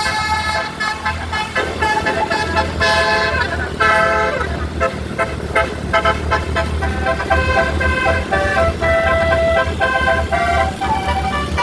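Indonesian bus 'telolet' horn, a multi-tone musical air horn, playing a tune of changing notes over a steady low rumble.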